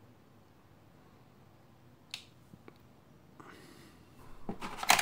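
Mostly near silence, broken by a single light click about two seconds in and a couple of fainter ticks. Near the end, clear plastic packaging starts to crinkle loudly as it is handled.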